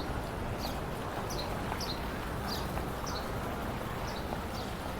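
Small birds chirping over steady city street noise: a string of short, high, falling chirps about twice a second.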